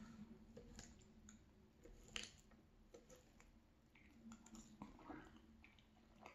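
Faint, scattered clicks of a fork picking up gravy-soaked fries and of soft eating mouth noises, the loudest click about two seconds in.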